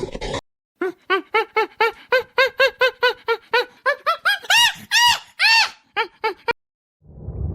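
A small animal yelping in a rapid series of short, squeaky calls, about four a second. The calls grow louder and higher about four seconds in, then stop abruptly.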